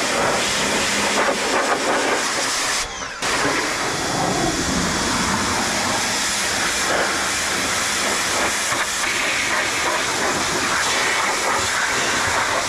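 Craftsman pressure washer's high-pressure water jet spraying and hissing onto a car's engine bay, with a short break about three seconds in.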